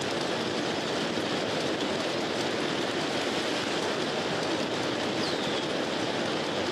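Steady rushing road noise of a bicycle riding along: tyres rolling on pavement and wind over the handlebar-mounted microphone. A faint short falling whistle comes about five seconds in.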